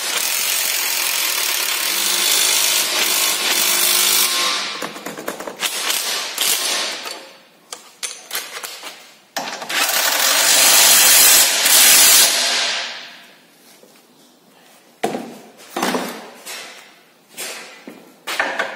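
Electric impact wrench running a suspension bolt up snug in two long bursts, the first about four seconds and the second about three seconds, followed by a few sharp metal knocks and clicks near the end.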